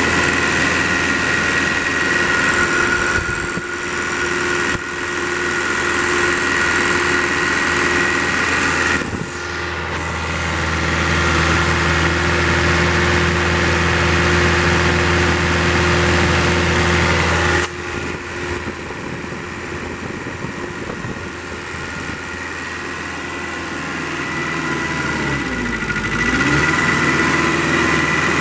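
Kubota V1505 four-cylinder diesel engine idling steadily, heard close up.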